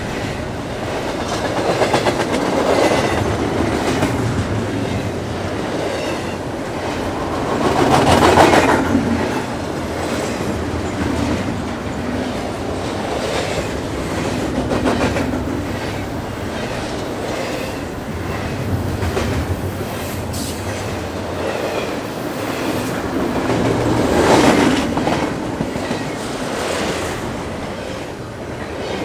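A train running along its track: a continuous rumble and rattle of wheels on rails that swells louder twice, about eight seconds in and again late on.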